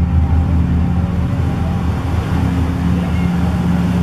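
Marine diesel engines running with a steady low drone as a canal tugboat works close alongside, its propellers churning the water.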